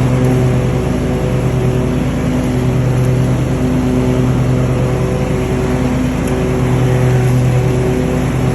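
Lawnmower engine running steadily at a constant speed, freshly fitted with a new drive belt, with slight rises and falls in level.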